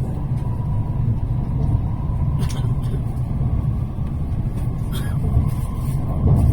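Tokaido Shinkansen train running, heard from inside the passenger car: a steady low rumble with a faint steady whine, and two brief clicks, about two and a half seconds apart.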